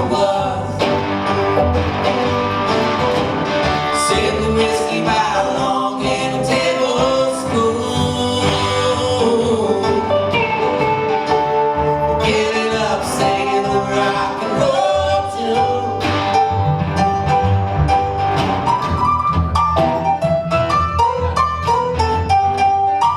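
Live country band music led by acoustic guitar with other string instruments. Near the end it moves into a quick, even picked figure.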